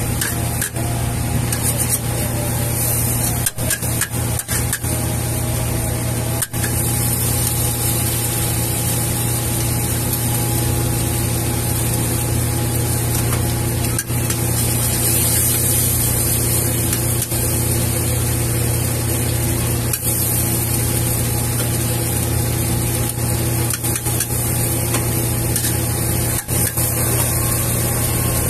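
Wok stir-frying over a gas burner: a steady burner rush and hum with fried noodles sizzling. A metal spatula scrapes the wok, with a few sharp knocks in the first several seconds.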